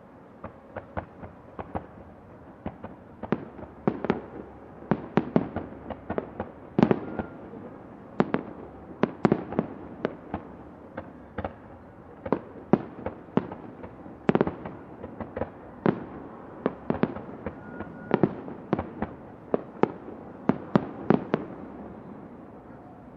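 Distant fireworks display: a long, irregular series of booming aerial shell explosions, each sharp bang followed by an echoing tail, sometimes several in quick succession, over a steady outdoor hiss. The bangs come thickest through the middle and thin out near the end.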